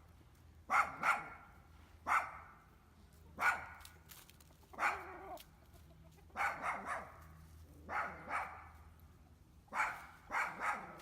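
A dog barking repeatedly: single barks and quick runs of two or three, about a dozen in all.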